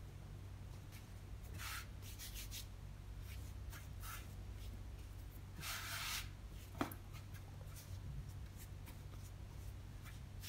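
Hands rubbing and brushing across a floured wooden cutting board while shaping bread dough: faint scattered brushing strokes. The longest stroke comes about six seconds in, as the palm sweeps through the flour, followed by a light tap.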